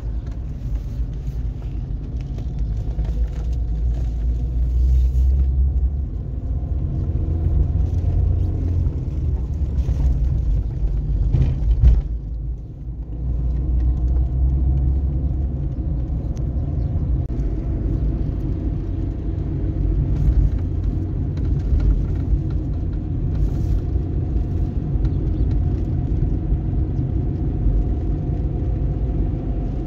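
Motor vehicle running: a steady low rumble with a faint engine hum, a short thump about twelve seconds in, and a brief drop in level just after.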